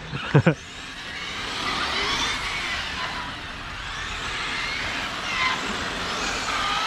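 Radio-controlled car's brushless electric motor whining, its pitch rising and falling as the car speeds up and slows, twice, over a steady hiss.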